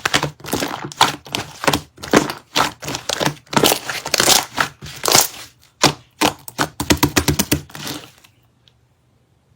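Slime being squished and pressed by hand, giving quick, irregular clicks and crackles that stop suddenly about eight seconds in.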